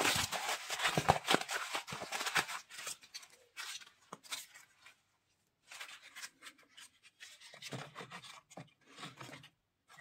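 A molded paper-pulp egg tray being crushed and crumpled by hand: dense dry crunching and crackling for the first three seconds, then after a short pause scattered rustles as the crumpled tray is handled and pushed into the firebox.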